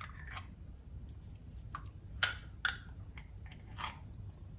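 Pickled banana peppers being forked out of a glass jar and dropped into beef juice in a slow cooker: a handful of soft wet squishes and small fork-on-glass clicks, the clearest a little past two seconds in.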